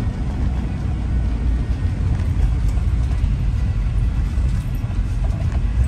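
1970 Ford Club Wagon van driving at a steady speed, heard from inside the cab: a steady low rumble of engine and road noise.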